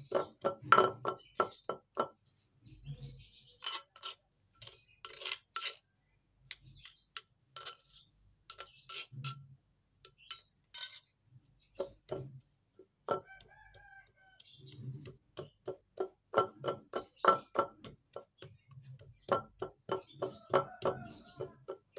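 Stone pestle pounding and grinding mashed tempeh in a stone mortar: runs of sharp stone-on-stone knocks, several a second, in bursts with short pauses between them, each knock with a dull thud beneath.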